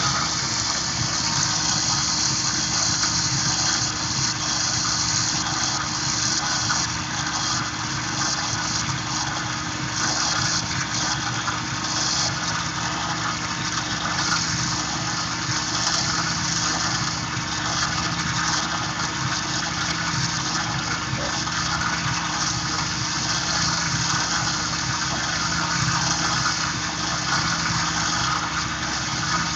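Tormach PCNC 1100 CNC mill's spindle running steadily while an end mill cuts a pocket in aluminium, a constant machine hum under a wide hiss of cutting noise.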